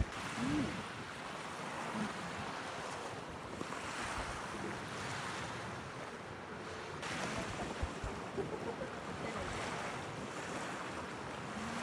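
Sea waves washing onto a beach, a continuous rush of surf that swells and falls back every few seconds.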